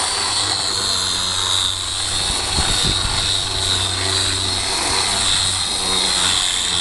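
Electric hand sander running steadily against the fiberglass skin of a boat rudder, sanding it down toward the final layer. A high whine that wavers slightly in pitch sits over a constant low hum.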